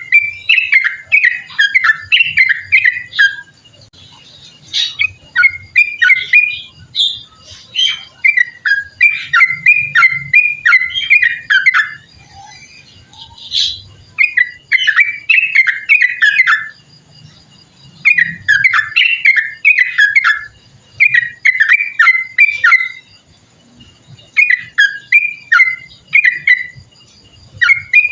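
Yellow-vented bulbul (trucukan) singing long runs of rapid, bubbling notes, phrase after phrase of two to three seconds with short pauses between.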